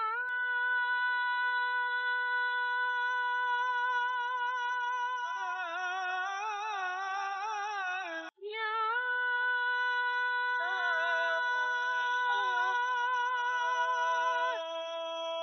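Wordless sung score music: a high voice holds one long steady note, joined about five seconds in by a lower voice with a slow wavering vibrato. It breaks off briefly just after eight seconds, then the held note returns with the lower voice coming back in.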